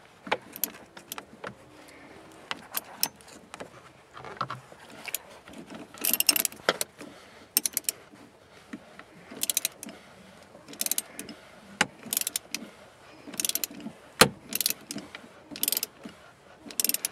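Hand ratchet clicking in short bursts while a 15 mm socket on an extension loosens the upper nut of a car's rear shock absorber, with single metal knocks and clinks of the tool in between.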